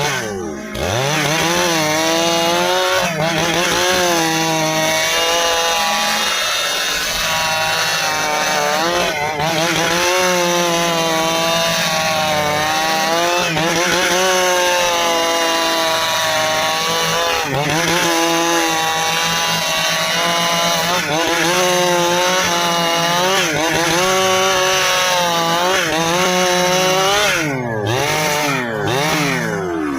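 Two-stroke Stihl chainsaw cutting through dry ipê hardwood, its engine pitch wavering as the chain bogs and recovers under load. The revs drop and pick up again a couple of times near the end.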